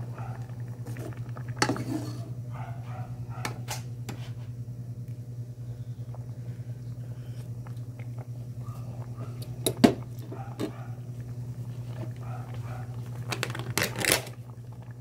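A few sharp knocks and clinks of a metal ladle on a metal cooking pot, the loudest about ten seconds in and a short cluster near the end, over a steady low hum.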